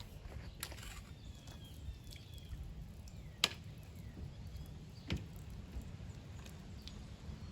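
Faint outdoor background with a steady low rumble, a few faint falling chirps, a sharp click about three and a half seconds in and a softer knock near five seconds.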